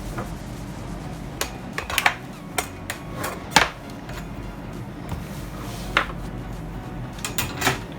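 Irregular sharp clicks and knocks of hard plastic parts and a ruler used as a pry tool, from work on a JBL Xtreme speaker's casing. About a dozen unevenly spaced taps, loudest around two, three and a half, six and seven and a half seconds in, over background music.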